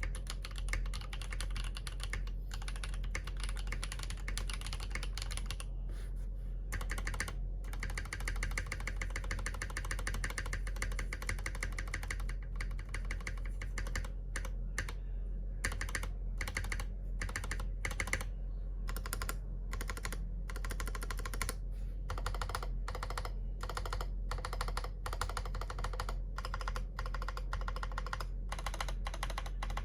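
Typing on an Akko MOD001v2 mechanical keyboard with Yok Panda tactile switches on a polycarbonate plate. Keystrokes come in fast, dense runs broken by several short pauses, over a steady low hum.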